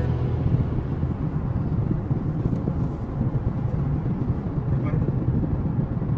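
Steady low rumble of road and engine noise heard inside a car's cabin while cruising on a highway.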